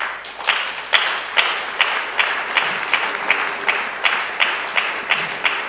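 Audience applauding, the clapping pulsing in a steady rhythm of about two to three claps a second that quickens slightly.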